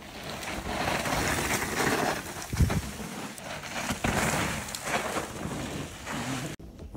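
Mountain bike tyres rolling and crunching over loose dirt with wind rushing on the microphone, and a heavier thump about two and a half seconds in.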